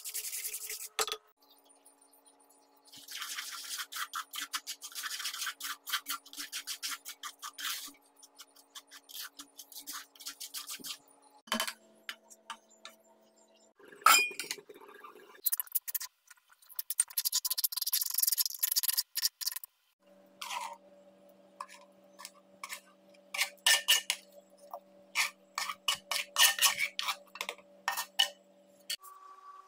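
Thick rice-flour and jaggery batter being worked by hand and with a wooden spoon in a pot: runs of rapid rubbing and scraping strokes lasting a few seconds each. Around fourteen seconds in there is a single sharp clink as a steel lid is handled, and faint background music with held notes sits underneath.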